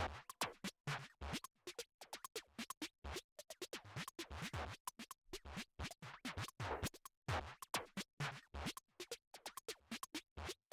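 Quiet background music made of sparse, irregular clicks and scratchy percussive hits, with no steady tune.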